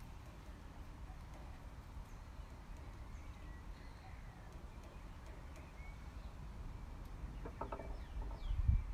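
Outdoor ambience: a steady low rumble with faint scattered bird chirps, a short animal call about seven and a half seconds in, and a low thump just before the end.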